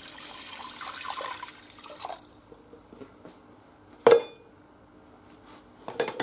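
Water pouring from a jug into a stainless steel pot of fried garlic and tomato, a steady splashing hiss that stops about two seconds in. About four seconds in comes a single sharp knock with a short metallic ring, and a few light clicks near the end.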